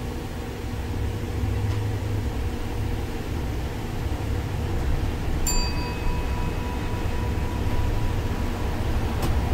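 Low, steady rumble of an MAN Lion's City articulated bus with a biogas engine, heard from the front of the cabin, getting louder about a second in as the bus gathers speed. About five and a half seconds in a single bright chime sounds and fades over about two seconds, and a short click comes near the end.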